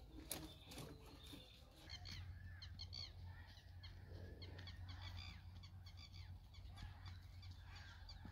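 Faint scattered bird calls, short chirps and squawks, over a low steady hum that comes in about two seconds in.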